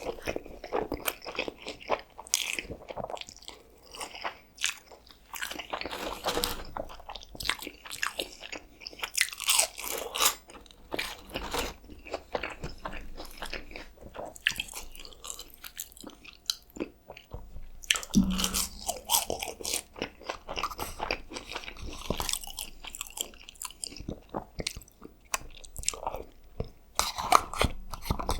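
Close-miked eating: repeated bites and chewing, with crunchy and wet mouth sounds.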